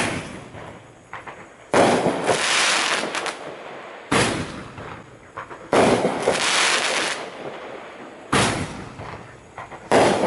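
Five-ball Roman candle firing its shots: a sharp report about every two seconds, each followed by a hissing tail that fades over a second or two.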